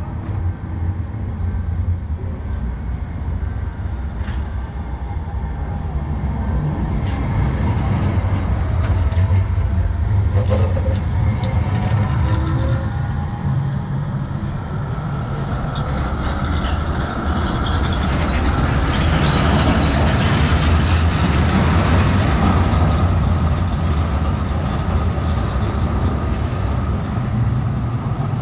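Tram running past on street track: a steady low rumble with rattles and clicks, swelling to its loudest about two-thirds of the way through, with a thin faint whine in the second half.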